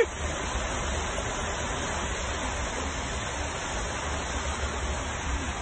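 Steady rushing noise from inside a vehicle driving through a flooded street, water churning and spraying around it over a low rumble.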